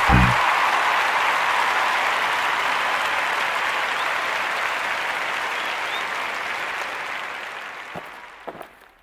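Applause: steady clapping that fades away over the last two seconds.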